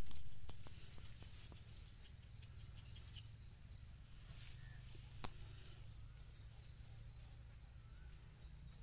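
Outdoor ambience: a steady low rumble, loudest at first and easing over the first couple of seconds, under a rhythmic high chirping that stops for a few seconds and returns near the end. There is a single sharp click about five seconds in.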